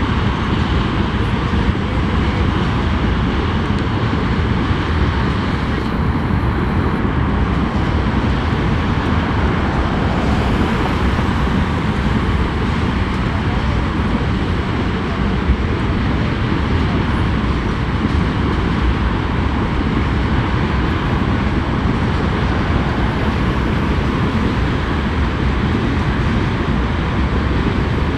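Steady rumble of a freight train rolling through a grade crossing.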